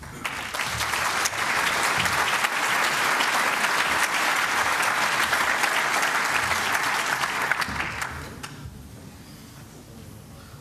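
Audience applauding. It builds up in the first second, holds steady, and dies away about eight seconds in.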